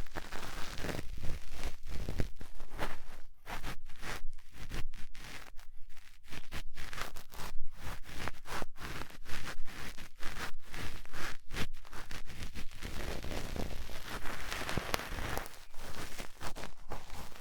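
Cotton swab rubbing and scraping in the ear of a 3Dio binaural microphone, in close, quick, irregular strokes, easing into a softer, more even rustle for the last third.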